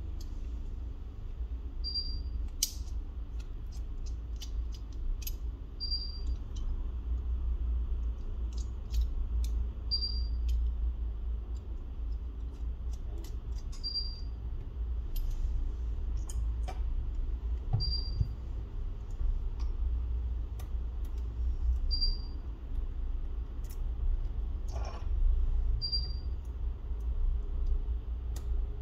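Scattered small clicks and taps of repair tools and small parts during a phone disassembly, over a steady low hum. A short high beep repeats about every four seconds.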